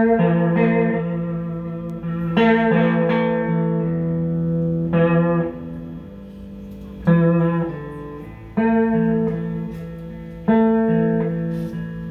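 Guitar playing an instrumental break: full chords struck about every two seconds, each left to ring out and fade before the next.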